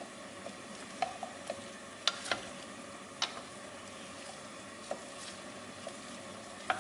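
Diced potatoes sizzling faintly in oil in a terracotta pot while a wooden spatula stirs them, with a few scattered light clicks of wood against the potatoes and the pot.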